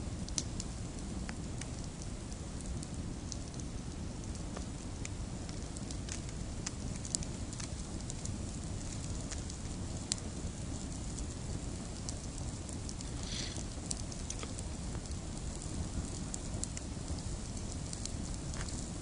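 Campfire burning resin-rich fatwood pine root, crackling with scattered sharp pops over a steady low rumble. A short hiss rises out of it about thirteen seconds in.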